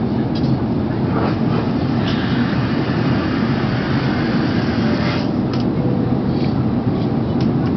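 Steady cabin noise inside an Airbus A380 in flight: an even, low rush of airflow and engines, with a few faint clicks.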